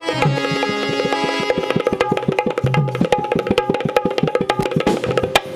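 Instrumental gondhal music: quick strokes on a sambal, the red double-headed drum played with sticks, over steady, held notes from a melodic instrument.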